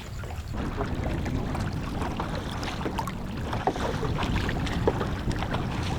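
Water splashing and dripping around a kayak in small, irregular clicks and splashes, over a steady low rumble of wind on the microphone.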